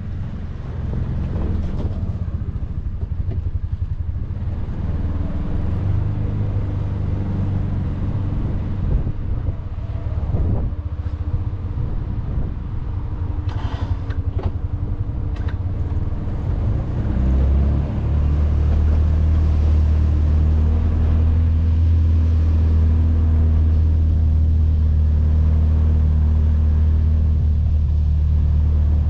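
Can-Am Defender side-by-side's engine running, with a few brief knocks near the middle; about two-thirds of the way in the engine note becomes louder and steadier.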